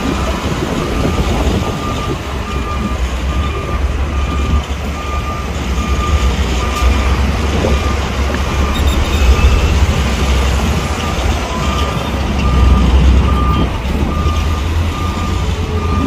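Bulldozer's diesel engine running with a steady low rumble while a reversing alarm beeps at an even pace.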